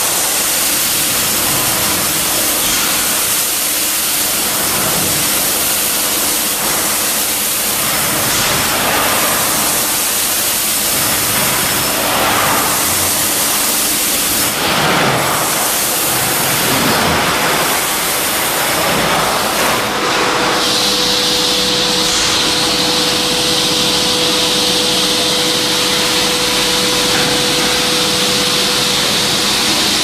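Industrial vacuum cleaner (MaxVac Compact 110 with an 11 kW vacuum pump) running, air rushing loudly through the suction hose and floor nozzle as spilled feed pellets are vacuumed off a concrete floor. About twenty seconds in the sound shifts to a steadier rush with a brighter high hiss and a faint steady hum.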